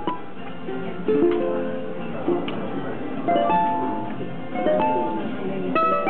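Ukulele being played: plucked chords and single melody notes ring out one after another, with a new note or chord about every second.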